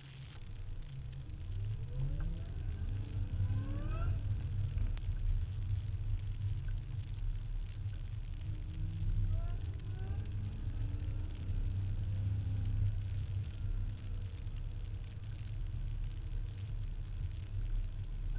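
Car driving fast, heard from inside the cabin: a steady low rumble of road and wind, with the engine revving up in rising sweeps about two to four seconds in and again around ten seconds.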